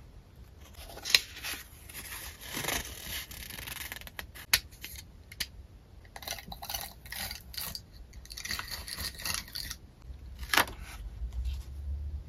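Paper memo sheets being handled and arranged on a journal page: rustling, sliding scrapes in a few stretches, with three sharp taps.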